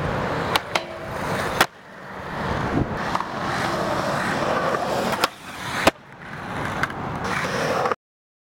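Skateboard wheels rolling on concrete, the rolling noise building between several sharp clacks of the board, two of them loud. The sound cuts off abruptly near the end.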